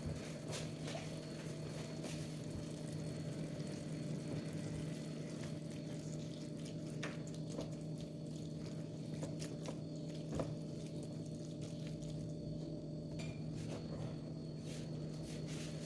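Steady low hum with scattered light clicks and taps of kitchen utensils and dishes, one sharper knock about ten seconds in.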